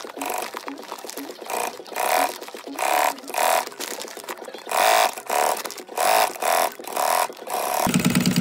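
Industrial sewing machine run in short spurts of a few stitches at a time, a pitched whine starting and stopping about twice a second as the seam is eased through by hand. Near the end it runs on more steadily with a lower hum.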